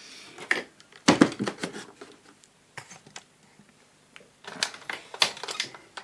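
Scattered clicks and light knocks from handling a digital multimeter and its probe leads on the workbench. They come in two clusters, one about a second in and another near the end.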